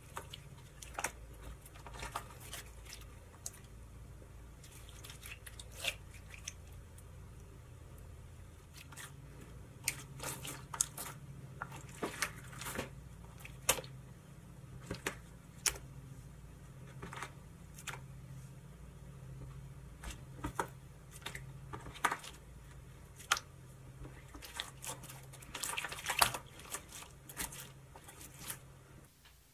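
Homemade borax slime being stretched, folded and pressed by hand, giving irregular sticky squelches with sharp clicks and pops. The pops come thickest in clusters, the loudest run about 26 seconds in, over a faint low hum.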